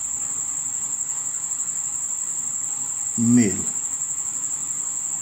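Crickets trilling steadily, one continuous high-pitched note with no break. A voice says a single word a little over three seconds in.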